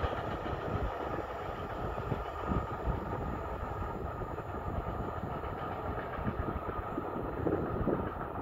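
Container freight train rolling steadily past on the rails.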